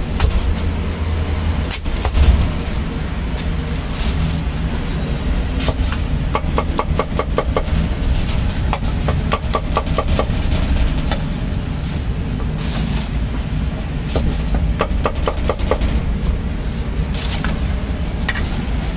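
Steel cleaver chopping on a thick wooden chopping block, cutting roast duck and slicing cucumber. The cuts come as single knocks and in three quick runs of about five strokes a second, over a steady low background rumble.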